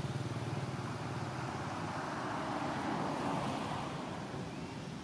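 A motor vehicle's engine running off camera with a low, rapid pulsing, then a rushing sound that swells and fades about halfway through as the vehicle passes.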